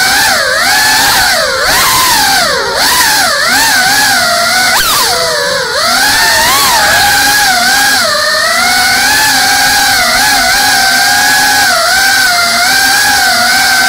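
GEPRC CineLog35 cinewhoop FPV drone's brushless motors and ducted propellers whining, the pitch swooping up and down quickly with the throttle for the first six seconds or so, then holding steadier with small wobbles.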